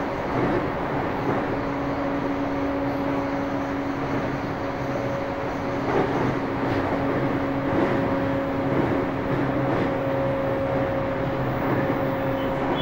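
Running noise inside a JR East E235-1000 series electric train's motor car at speed between stations: steady wheel and rail noise with a constant hum from the traction equipment (Mitsubishi full-SiC VVVF inverter driving MT79 motors), holding an even level.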